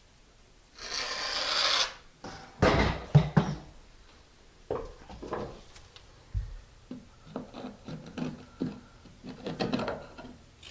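Thin-set mortar being scraped and spread onto the back of a ceramic bullnose tile with a metal blade: one long scrape about a second in, a sharp knock about three seconds in, then a run of shorter scrapes and taps.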